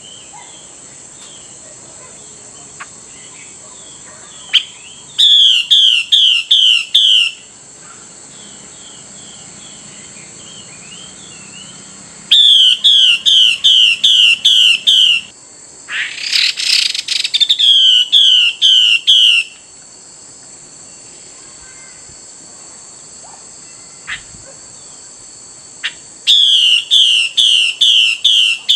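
Female Chinese hwamei calling to a male: four series of five or six quick downslurred whistled notes, spaced several seconds apart, with a short harsh rasping burst about halfway through. A steady high insect drone runs underneath.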